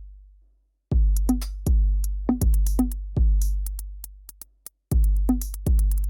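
Background electronic music with a drum-machine beat of deep booming bass notes and sharp drum hits. It stops dead for a moment about a second in, then resumes.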